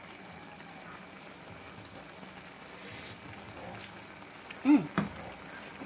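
Chicken and tofu simmering in their own juices in a nonstick frying pan, a steady bubbling hiss, as a wooden spoon stirs them. Near the end come two short, loud sounds that fall in pitch.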